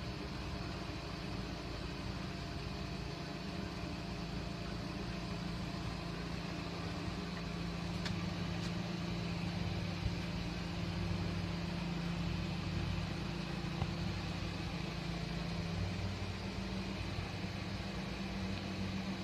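Steady low mechanical hum from a running motor, with a slight pulsing in its lowest tone in the second half.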